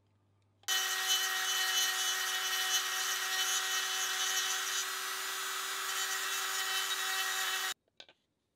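Handheld rotary tool with a small cutting bit running at steady speed as it carves the wooden hammer handle's end to fit the head's eye: a steady whine with a grinding hiss. It starts about a second in and cuts off suddenly near the end, followed by a faint click.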